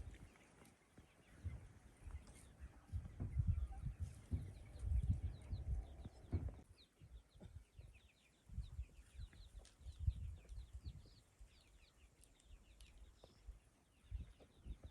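Small birds chirping in many short, high calls, over irregular low rumbling.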